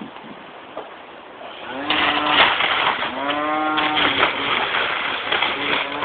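Leafy branches of an overgrown vine rustling and thrashing as they are pulled about, starting about two seconds in. Two drawn-out tones that rise and fall come through the rustling, about two and three seconds in.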